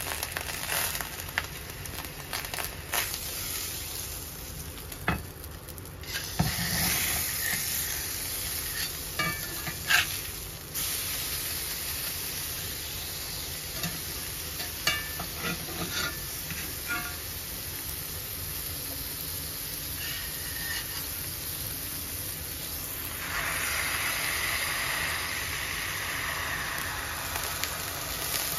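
Beef burger patty sizzling in a cast-iron skillet, with a few sharp knocks as the cast-iron burger press is handled and set down on it. The sizzle grows louder in the last few seconds while the press is held down on the patty.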